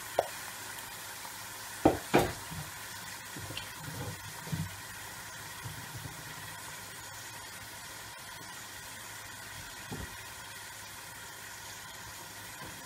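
Cubed pork frying in hot rendered pork fat in an aluminium kazan: a steady sizzle, with a few short light knocks, mostly in the first five seconds and once more near the end.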